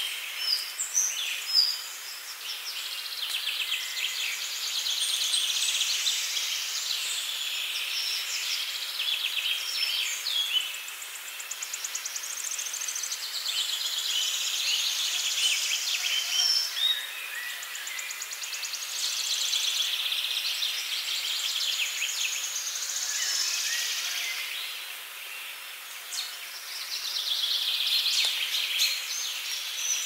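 Songbirds singing in a dense woodland chorus: overlapping chirps and fast trills, with a brief lull a few seconds before the end.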